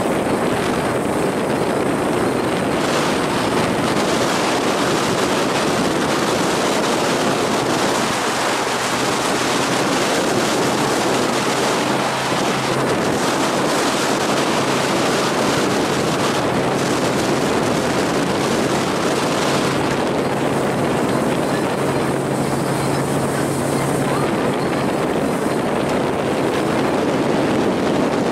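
Sterndrive bowrider running at speed: a steady rush of wake water and wind on the microphone over the low drone of its Volvo Penta 4.3 GXi V6 engine, whose hum stands out a little through the middle.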